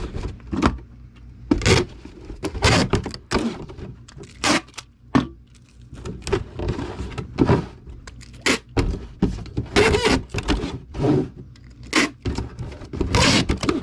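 Cardboard boxes being handled: a model kit box fitted into a Priority Mail shoebox, with repeated thunks, scrapes and rustles of cardboard.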